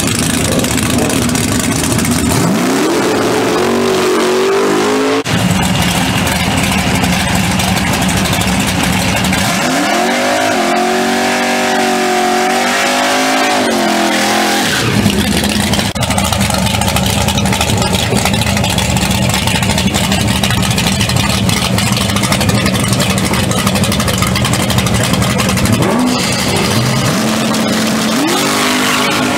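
Drag-racing cars' engines at the starting line over a steady idling drone: an engine revs up in a rising pitch a few seconds in, another is held at high revs for a burnout, spinning its rear tyres, from about ten to fifteen seconds in, and near the end an engine revs up again.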